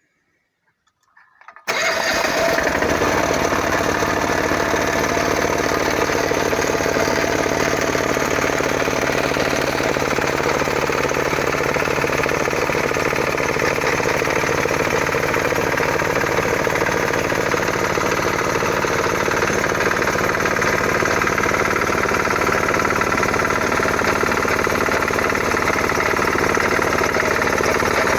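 Home-built diesel air compressor running steadily: an old generator's diesel engine driving a belt-driven compressor pump, with a rapid, even pulsing beat. It comes in suddenly at full level about two seconds in, after near silence.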